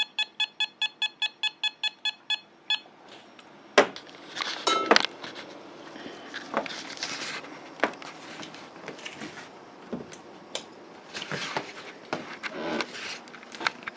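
A handheld RF (microwave) meter's beeper sounding a fast series of short electronic beeps, about six a second, which slow slightly and stop after about three seconds. Scattered clicks and crackles follow.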